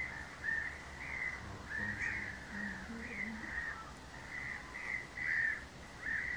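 Barnacle geese calling: a steady run of short, high-pitched calls, one or two a second.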